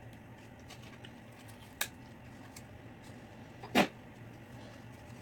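Handling of adhesive tape on cardboard tubes: a few faint clicks and one louder short crackle about four seconds in, over a low steady hum.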